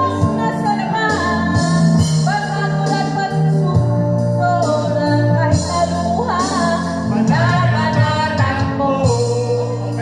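Karaoke through a loudspeaker: a woman singing into a microphone over a music backing track with a steady bass line.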